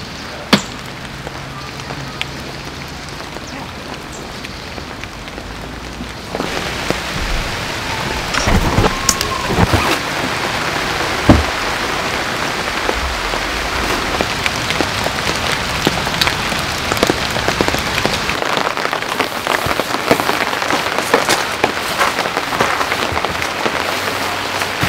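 Heavy rain falling on tent fabric, a steady hiss dotted with many sharp drop impacts. It gets louder about six seconds in, and two single loud taps stand out, about half a second in and about eleven seconds in.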